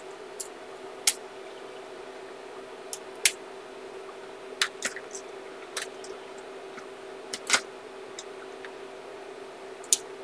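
Scattered sharp plastic clicks, a dozen or so at irregular intervals, from gel pens and their caps being handled while a colour is chosen. A faint steady hum runs underneath.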